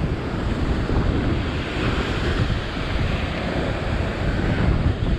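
Ocean surf breaking and washing over a rock shelf, with wind buffeting the microphone.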